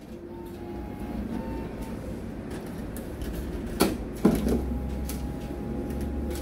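Bank ATM with a card being fed into its card slot: two sharp clicks a little under four seconds in, close together, as the card goes in, over a steady low machine hum.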